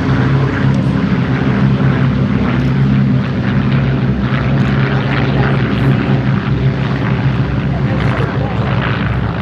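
Boeing B-17 Flying Fortress Sally B's four Wright Cyclone radial piston engines running, a steady propeller-driven drone with a deep, even engine tone.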